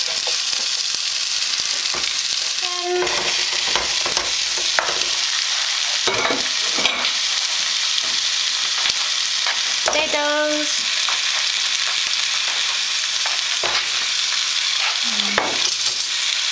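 Spice paste sizzling steadily in hot oil in a saucepan while a wooden spoon stirs and scrapes it. A few sharp knocks come as raw chicken pieces and potato chunks go into the pan.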